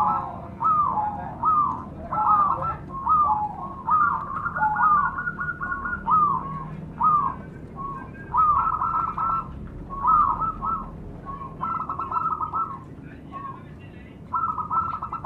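Zebra doves (perkutut) cooing together: short hooked coos repeated about twice a second from several birds at once, overlapping. The calls thin out after the middle, with a few longer rolled notes.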